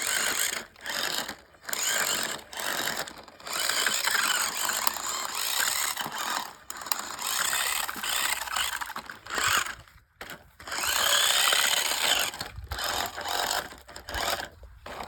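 Toy RC car's small electric motor and plastic gears whirring and rattling in on-off runs as the throttle is pulsed: several short blips, then longer runs of a few seconds, one with a rising whine. The owner puts the rattly engine-like noise down to a gear that has come loose, which he says doesn't affect how it drives.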